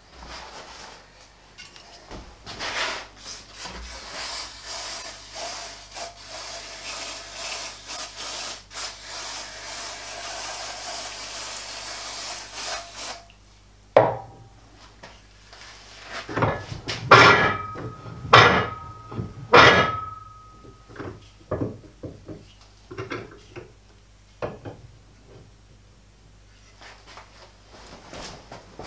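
Aerosol cleaner hissing steadily for about ten seconds as the freshly honed two-stroke kart cylinder is cleaned. A knock follows, then three loud metal clanks that ring as the finned cylinder is handled and clamped in a bench vise, with small clicks after.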